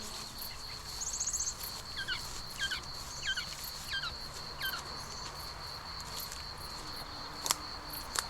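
Field ambience: an insect trills steadily at a high pitch while a bird sings a run of five falling whistled notes. A bee's buzz fades out at the start, and two sharp clicks come near the end.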